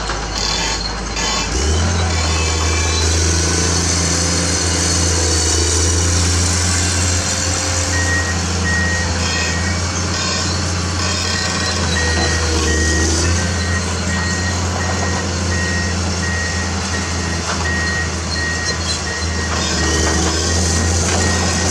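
Komatsu PC210 excavator's diesel engine running steadily, its revs stepping up about a second and a half in. From about eight seconds in, the excavator's travel alarm beeps in a regular series of short, high beeps as the machine tracks.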